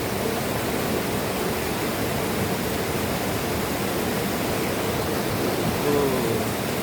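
Steady rushing of flowing water, an even noise that holds without change.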